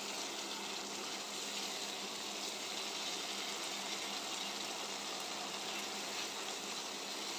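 Spice paste of fried onion, ginger-garlic and chilli sizzling and bubbling in oil in a karahi as it is fried down (kosha) with a little water: a steady, even hiss.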